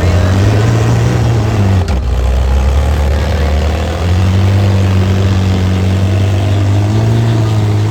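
Off-road 4x4's engine running hard and revving up and down in surges, with a single sharp knock about two seconds in.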